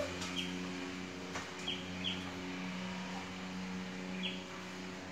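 A steady machine hum, with four short, high chirps that dip slightly in pitch and a faint click about a second and a half in.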